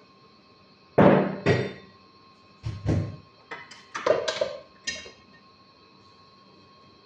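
A run of six or seven knocks and thuds over about four seconds, the first the loudest.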